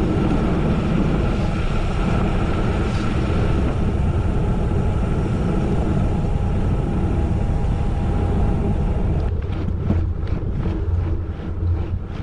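Steady rumble of wind and tyre noise from riding a bicycle on a gravel road. It eases about nine seconds in and gives way to a run of short clicks.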